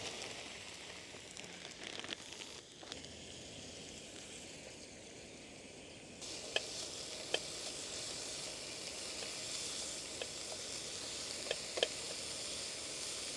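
Shrimp sizzling in hot olive oil in a small frying pan on a camping gas stove. The sizzle grows louder about six seconds in, as a plastic spatula stirs the shrimp and taps the pan a few times.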